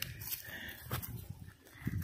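A goat eating wheat grains from a shallow metal tin: faint, irregular crunching and grain-rattling clicks as it chews and noses the grain.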